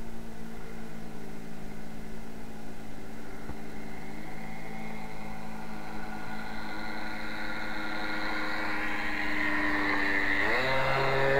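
Radio-control model airplane engine running steadily, then revving higher near the end and growing louder.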